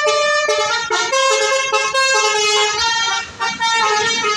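Basuri telolet bus horn playing a tune: a run of held multi-tone horn notes stepping up and down in pitch, with a short break about three seconds in.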